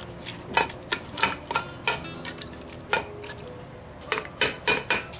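A black ladle stirring raw marinated meat pieces with onions, lentils and spices in a steel pressure cooker: irregular wet scrapes and knocks against the pot, with a cluster of sharper knocks near the end.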